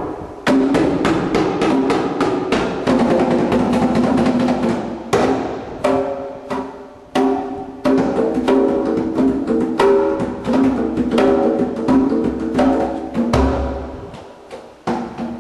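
Djembes struck by hand in a fast, dense rhythm, the strokes feeding a Max/MSP interactive music system, with pitched tones ringing between the strokes. The playing thins out and drops in level near the end.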